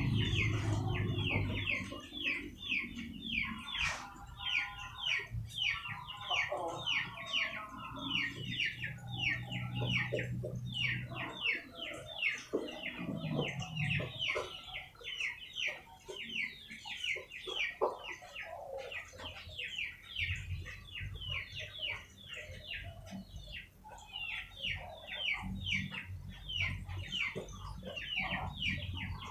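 Chickens clucking, over a run of rapid high, falling peeps at about three a second.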